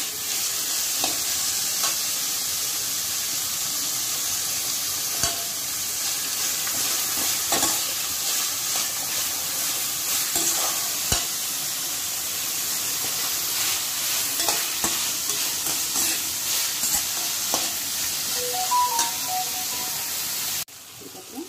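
Chopped capsicum, tomato and green chillies sizzling in hot oil in a nonstick kadai as a slotted metal spatula stirs them, with scattered scrapes and taps of the spatula on the pan. The sizzle drops away suddenly near the end.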